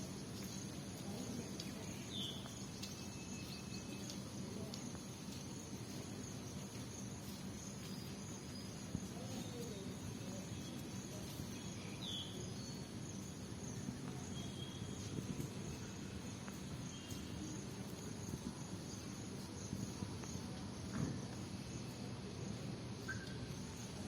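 Faint, steady outdoor background noise with a high, even whine and a few short chirps: about two seconds in, near the middle and near the end.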